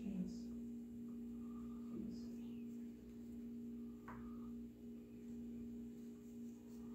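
Quiet room with a steady low electrical hum, with a few faint, short, soft sounds over it.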